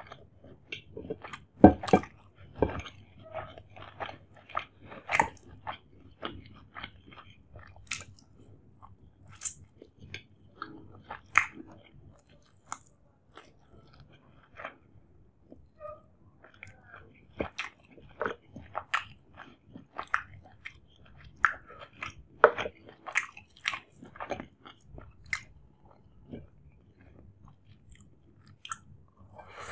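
Close-miked mouth sounds of a person eating chicken dum biryani by hand: irregular wet chewing smacks and sharp bites, loudest in the first few seconds, with a quieter stretch about halfway through.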